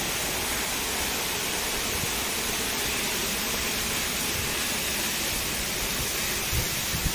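Steady rushing roar of a waterfall. A few low bumps come near the end.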